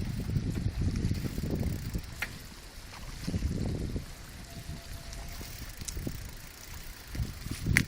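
Wind buffeting the microphone of a camera carried on a moving bicycle, in uneven low gusts, with the bicycle's occasional clicks and rattles; a sharp click about two seconds in and a louder one near the end.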